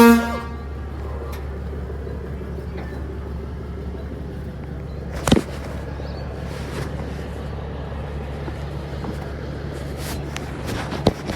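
A short, loud horn toot, then a steady low engine rumble, with a single sharp knock about five seconds in and a few lighter clicks near the end.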